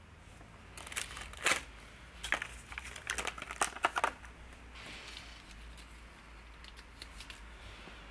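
Clear plastic blister pack crinkling and clicking in the hands as a rubber stabilizer damper is packed back into it: a cluster of sharp crackles in the first half, then fainter rustles and a few light clicks.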